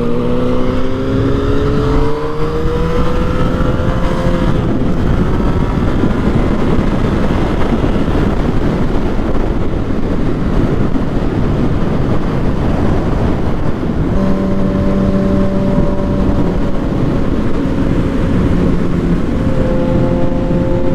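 Yamaha FZ-09's inline-three engine heard from the rider's seat, rising in pitch under acceleration for the first few seconds, then mostly buried in heavy wind rush, and holding a steady note at cruise over the last several seconds.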